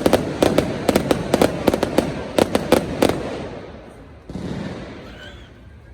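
Fireworks display bursting overhead: a rapid barrage of sharp bangs and cracks for about three seconds, then dying away into an echoing rumble.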